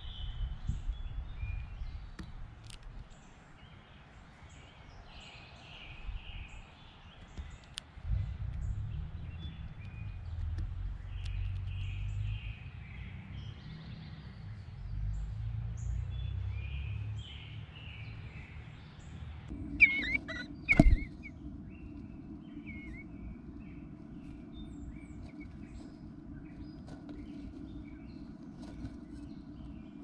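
Faint calls of small birds over a low rumble of outdoor ambience. About two-thirds of the way through, the sound changes to the inside of a nest box: two loud knocks a second apart, then a steady electrical hum with a few faint chirps.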